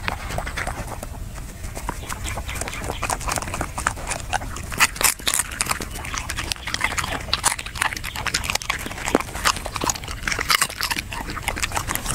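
A dog chewing and crunching grilled fish: a dense run of irregular sharp crunches and mouth smacks, busier from a few seconds in.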